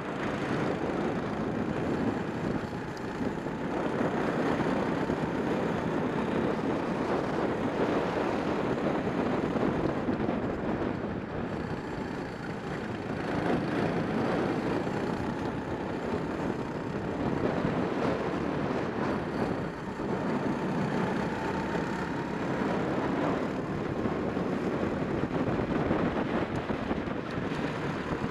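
Racing kart engine heard from onboard at speed, its note rising and falling with a few dips in loudness as the kart slows for corners.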